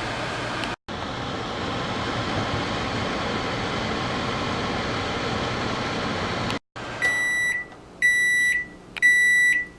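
Microwave oven running with a steady hum, then beeping three times about a second apart, each beep a high tone lasting half a second: the cooking cycle has finished.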